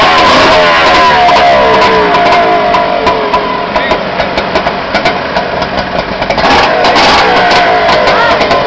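An engine running and revving, its pitch rising and falling over a constant rushing noise.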